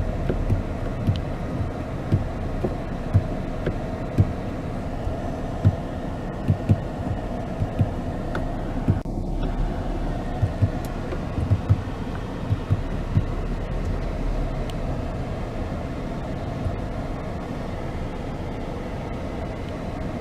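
Low steady wind rumble on a handheld microphone, with irregular soft thumps of footsteps and camera handling while walking.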